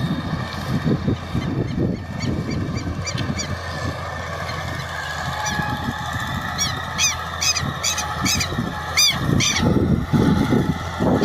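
Valmet tractor engine running steadily with wind on the microphone. Over it, a bird gives runs of short, sharp calls in quick succession, about two seconds in and again from about six and a half to nine and a half seconds.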